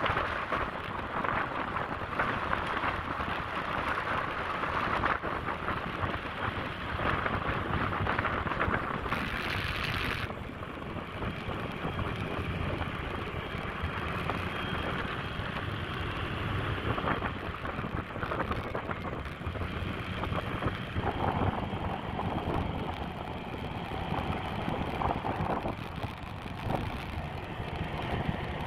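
Motorcycle riding at speed: wind rushing over the microphone, with vehicle noise underneath. The rushing thins out a little about ten seconds in.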